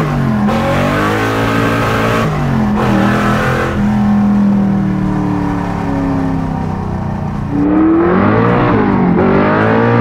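1967 Mercury Cougar's 504-cubic-inch Ford FE big-block V8 under hard acceleration, the revs climbing and dropping several times as it shifts through the gears of its manual transmission. It holds steadier for a few seconds, then climbs again near the end.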